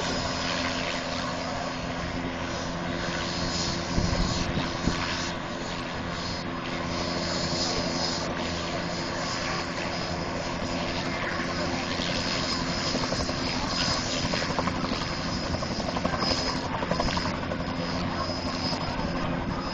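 Bell OH-58 Kiowa helicopter's turboshaft engine and rotor running on the ground, a steady beat with a high steady turbine whine, getting a little louder in the second half as it readies to lift off.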